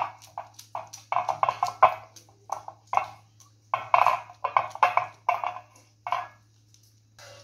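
Fingers rubbing oil around the cups of a stainless steel idli mould plate: a run of short, irregular rubbing sounds, easing off near the end.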